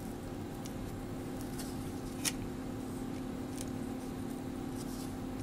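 Cardboard baseball cards handled and shuffled in the hands, with one sharp click of a card about two seconds in and a few fainter ticks, over a steady low room hum.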